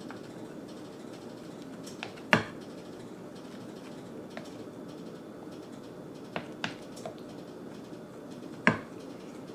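Sharp clicks of utensils knocking against a ceramic mixing bowl while dry flour is stirred with wooden chopsticks. There are two loud clicks, about two seconds in and near the end, and a few lighter taps in between, over a steady low room hum.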